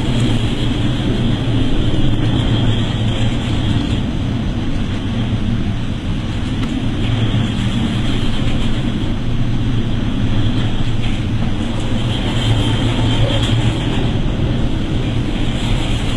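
A steady low engine drone with wind noise on the microphone.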